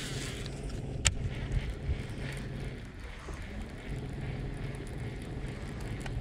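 Baitcasting reel being cranked to retrieve a spinnerbait just after a cast, with one sharp click about a second in as the reel engages, over a steady low hum.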